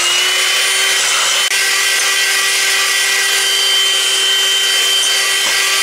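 Electric hand mixer running at a steady speed, its two metal beaters whipping cream in a glass bowl until it thickens; a steady motor whine.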